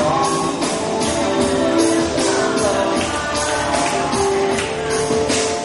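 Instrumental music with a melody of held notes over a steady beat of high percussion strokes, about two a second.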